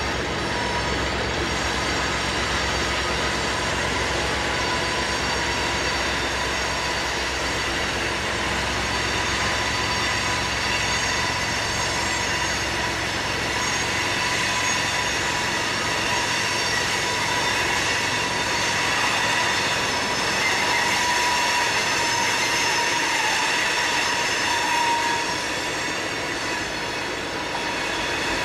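Loaded coal train's wheel flanges squealing on a curve: a loud, steady high ringing of several held tones, over the low rumble of the BNSF diesel locomotives, which fades about halfway through as they pull away.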